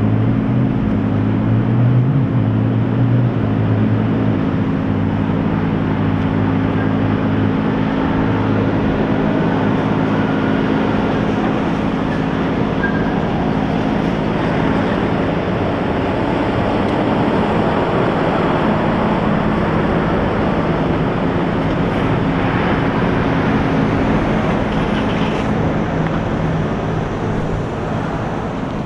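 Road traffic: a steady wash of vehicle noise over the continuous low hum of an engine running close by, whose pitch wavers in the first few seconds and then holds steady.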